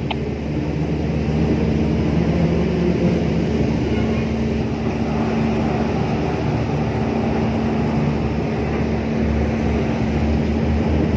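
Marine diesel engine droning steadily: a constant hum over a dense low rumble, swelling a little over the first two seconds and then holding level.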